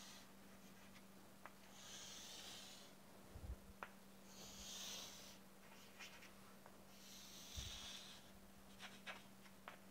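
Faint chalk scraping on a chalkboard: four separate strokes, each under a second long, as four curved arcs are drawn, with a few light ticks of the chalk between them. A steady low electrical hum runs underneath.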